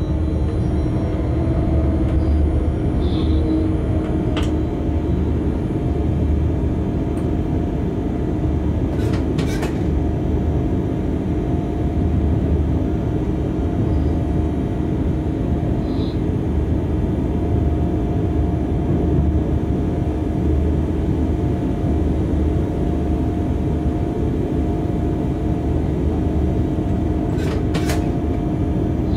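Locomotive running along the track, heard from inside the driver's cab: a steady rumble with a constant hum, and two brief clicks, one about ten seconds in and one near the end.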